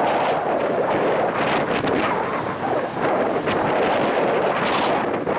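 Freight train's covered hopper cars rolling slowly past, a steady rumble and rattle of wheels on the rails, with some wind on the microphone.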